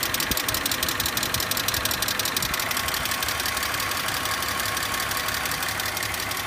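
BMW E46 engine running with a fast, regular clicking over it.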